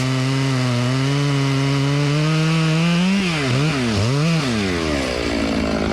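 Stihl chainsaw at full throttle cutting into a silver maple trunk, making the flat cut of an open-face notch. About three seconds in, the engine speed dips and rises twice, then drops back toward idle near the end.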